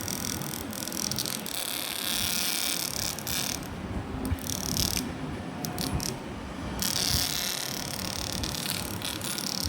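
Small electric fan switched on and running, its airflow buffeting the microphone, with mechanical clicks and rattles from the fan being handled.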